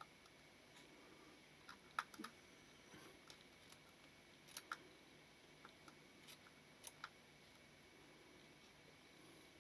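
Faint, irregular small clicks and ticks of a small screwdriver working against the metal parts of a leaf shutter mechanism under reassembly, in little clusters with near silence between.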